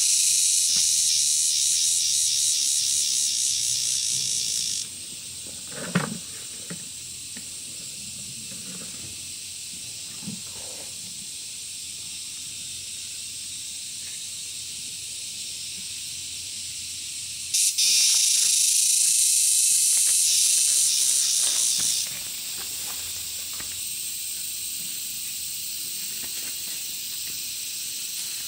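A loud, high-pitched, finely pulsing insect buzz that cuts off suddenly and then starts again abruptly later on, over a steady fainter high hiss, with a single knock in between.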